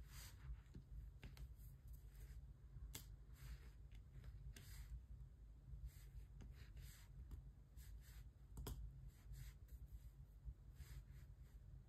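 Faint, irregular ticks and short scratchy rustles of a diamond painting pen dipping into a tray of drills and pressing them onto the canvas, with a couple of sharper clicks. A low steady hum runs underneath.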